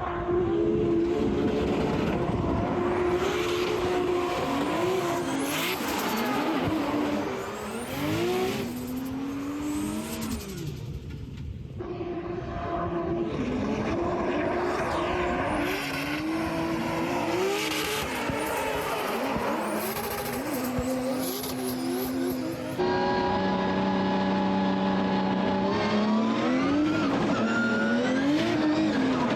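Drift car engine revving hard, its pitch sweeping up and down again and again as the car is thrown through corners, with tyre squeal and hiss from sliding tyres. Later it holds a steady high rev for a few seconds, then climbs again near the end.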